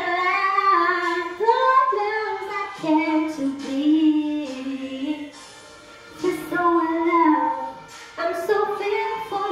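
A woman singing solo: long phrases that hold a note and then slide and bend between pitches, with a short break about five to six seconds in.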